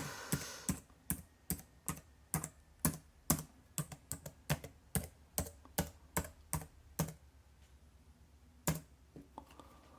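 New replacement keyboard on a Lenovo ThinkPad T430s laptop, its keys pressed one at a time, about three sharp clicks a second, to check that every key works. The keys sound clicky and new. The presses stop about seven seconds in, and there is one more click near the end.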